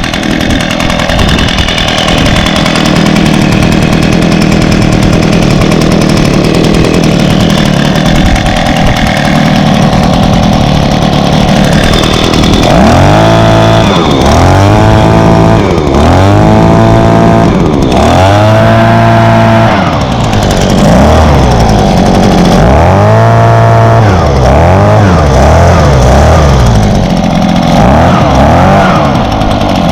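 Echo PB-265L backpack leaf blower's 25.4cc two-stroke engine, just cold-started, running steadily, then from about halfway through revved up and let back down again and again, around eight throttle blips.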